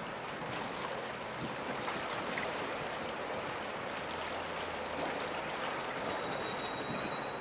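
Steady rush of water and wind from a harbour tug's bow wash as it runs ahead of a container ship, with a faint low hum underneath. A thin, steady high tone joins about six seconds in.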